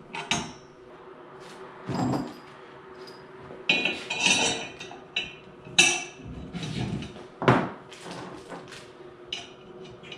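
Wrench and socket clinking against half-inch bolts and nylock nuts as they are tightened down, with scattered metallic clicks and a few louder clanks of the hardware.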